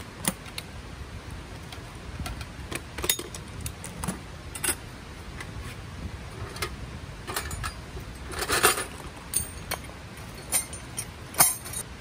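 Metal clicks and clanks from a steel ammo can being unlatched, opened and its contents handled, a dozen or so separate knocks with a longer scraping rustle about eight and a half seconds in.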